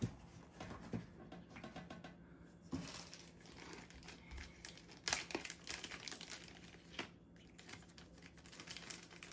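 Faint crinkling and rustling of kit packaging being handled, with a few light clicks and knocks of small parts.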